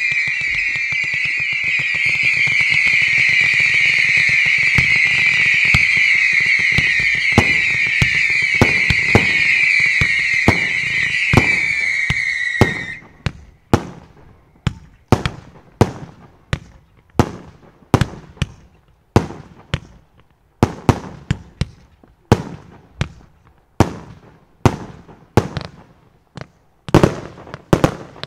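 Fireworks: a dense chorus of whistling fireworks over crackling, the whistling sinking slowly in pitch, cuts off abruptly about halfway through. Then a steady series of separate sharp bangs follows, roughly one a second.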